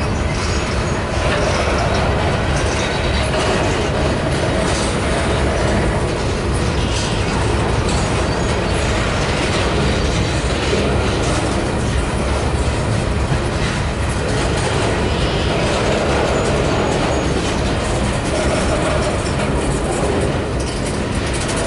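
Freight train's covered hopper cars rolling past close by: a steady rumble and clatter of steel wheels on the rails.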